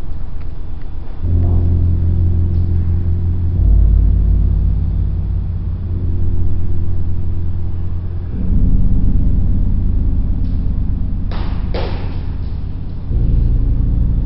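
Deep rumbling drone of stacked low tones from a height-jump simulation installation's soundtrack, shifting in pitch in steps every few seconds. A brief rushing noise comes about eleven seconds in.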